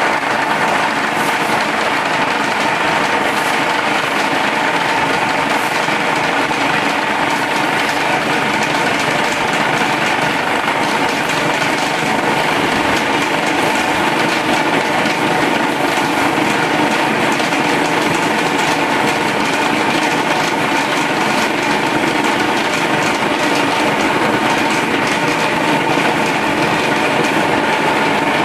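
Electric vibrating table running steadily, shaking a steel mold full of wet concrete to compact it into pig-pen floor slats.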